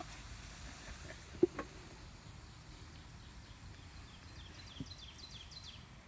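A sharp wooden knock about a second and a half in, with a lighter one right after, as a wooden lid is set down onto a hollowed cedar log. Near the end a bird sings a quick run of falling chirps over faint outdoor ambience.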